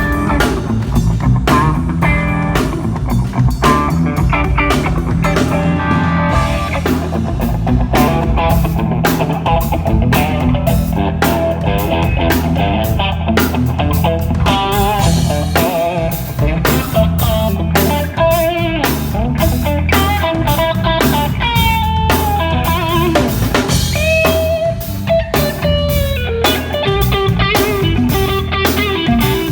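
A live band plays blues-rock: a lead guitar line with bent notes over bass and a drum kit keeping a steady beat.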